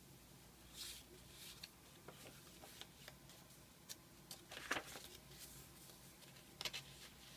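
Pages of a thick handmade paper journal being turned by hand: faint paper rustling and soft flicks, with a louder page flip about two-thirds of the way in and a few more near the end.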